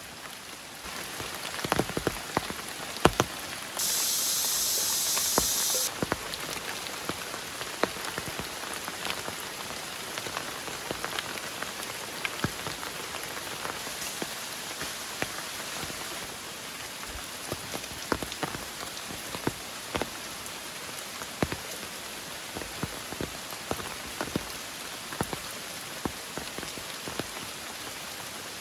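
Heavy rain falling steadily, with many separate drops striking close by. About four seconds in, a loud high hiss lasts about two seconds and cuts off abruptly.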